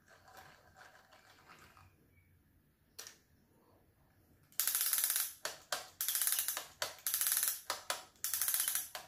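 Rapid mechanical ratcheting clicks in four loud bursts of about half a second to a second each, starting about four and a half seconds in, after a single click about three seconds in.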